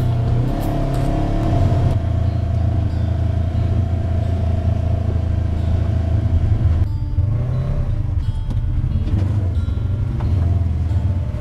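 Engine and drivetrain of a Polaris RZR side-by-side running steadily as it drives along a dirt trail. The engine note eases back about two-thirds of the way through.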